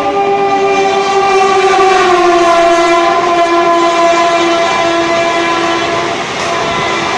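A WAP-7 electric locomotive's horn is held for about five seconds as the express passes at speed. Its pitch drops about two seconds in as the engine goes by. Under and after it comes the steady rush and rumble of the coaches rolling past.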